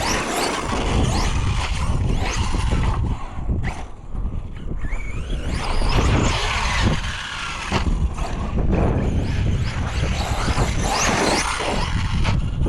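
Arrma Fireteam RC car's electric motor whining, rising and falling in pitch as it speeds up and slows down over and over, over a steady low rumble.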